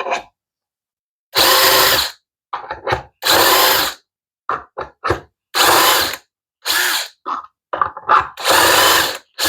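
Drill boring shelf pin holes through a shelf pin jig, in about five short bursts of under a second each, with quieter clicks and knocks in between as the bit is moved from hole to hole.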